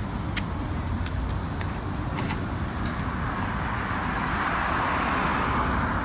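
Road noise while riding an electric kick scooter: a steady low rumble, with the hiss of a passing car swelling to its loudest about five seconds in. A few light clicks come in the first two seconds or so.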